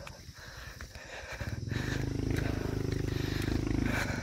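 Honda XRM 125 motorcycle's single-cylinder four-stroke engine running on a dirt trail. Its sound comes up sharply about one and a half seconds in, then runs steadily.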